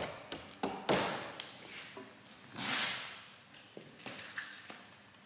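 Hands handling things at a workbench: a few light taps and knocks, then a short rustling swish about two and a half seconds in.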